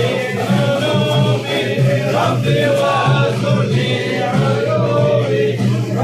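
A group of men chanting a devotional song together, many voices at once.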